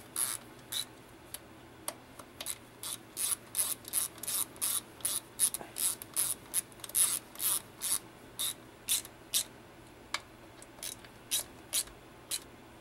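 Small hand socket ratchet clicking in short strokes, about two or three a second with a brief pause, as a bolt on an automatic transmission case is run down.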